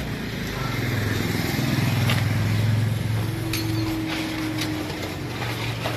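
A motor vehicle's engine running past: a steady low hum that grows louder over the first two seconds and then fades toward the end, with a thin higher tone in the middle.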